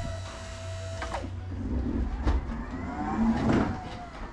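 Electric pallet truck at work under a pallet load: a steady electric whine cuts off about a second in, then the motor whines up and back down as the truck drives forward, with two sharp knocks as it rolls over metal, all over a steady low hum.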